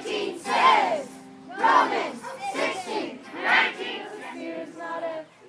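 A group of children shouting and yelling together in several loud bursts, with some group singing mixed in.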